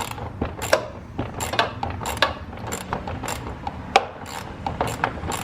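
Socket ratchet clicking in quick, uneven runs as the 10 mm bolts on a truck's air filter housing are turned out.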